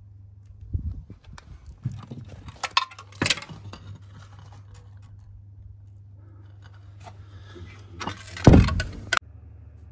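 Metal tools and parts of a car's front subframe clinking and clanking as they are handled during dismantling. Near the end comes a louder, harsh metallic rattle lasting under a second that cuts off suddenly.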